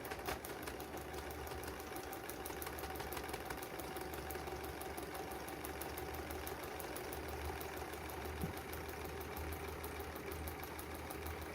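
Electric sewing machine running steadily, the needle stitching through paper in a rapid, even ticking rhythm.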